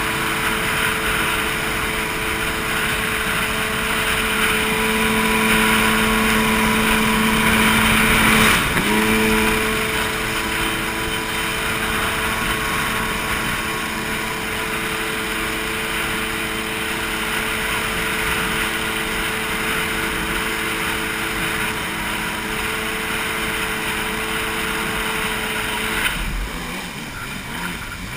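Stand-up jet ski engine running steadily at speed over the rush of water. About a third of the way in its pitch briefly dips and recovers. Near the end the engine note drops away, leaving a quieter rushing of water.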